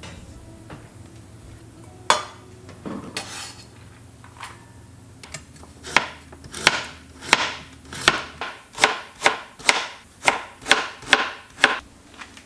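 Kitchen knife chopping on a wooden cutting board: a few scattered knocks, then a steady run of about a dozen chops, roughly two a second, starting about halfway through.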